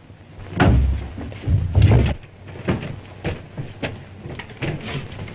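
Two heavy thuds followed by a run of lighter, irregular knocks, like a scuffle or hurried movement against wood.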